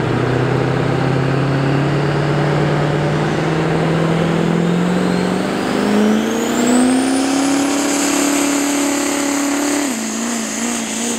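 GMC Sierra HD pickup's Duramax turbodiesel V8 at full load pulling a weight-transfer sled. The engine note climbs steadily while a turbo whistle rises to a high, steady whine. The engine drops back about ten seconds in.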